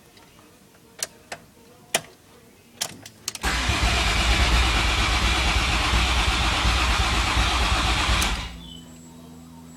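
A few clicks, then a car engine cranking on the starter for about five seconds, stopping near the end and leaving a quieter steady hum.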